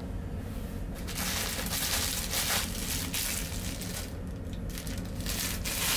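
Two gusts of wind buffeting the microphone, one about a second in and another near the end, over a steady low hum.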